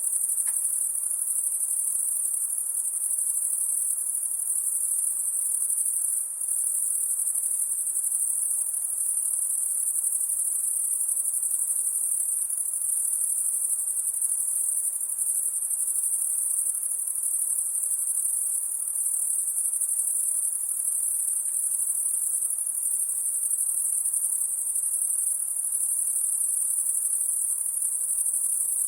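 Night-time insect chorus: a dense, steady, high-pitched shrill that dips briefly about six seconds in.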